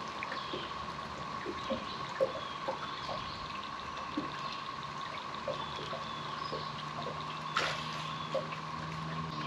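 Water lapping and plopping against the boat hull and dock, with birds chirping faintly, a steady thin hum throughout, and a couple of light knocks.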